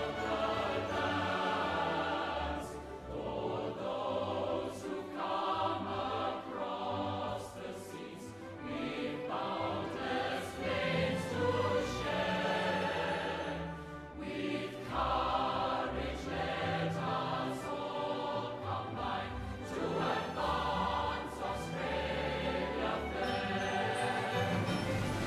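A choir singing held notes that change every second or two.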